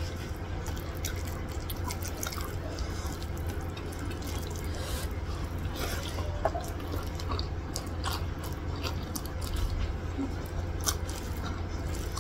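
Bare fingers mixing and squeezing rice with curry gravy on a plate: irregular wet squelches and short sticky clicks.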